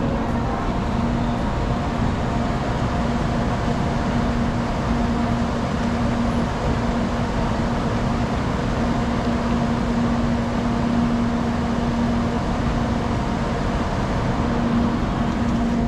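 Tokaido Shinkansen train standing at the platform with its doors open, its air conditioning and onboard equipment running: a steady hum with a constant low tone over a wash of station noise.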